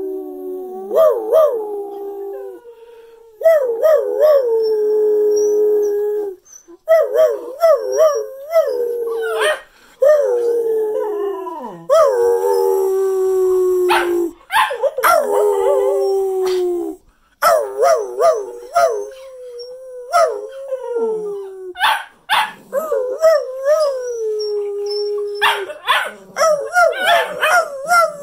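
Cocker spaniel howling in repeated phrases. Each phrase opens with a few short rising yips and settles into a long held note that slowly falls, with short breaks between phrases.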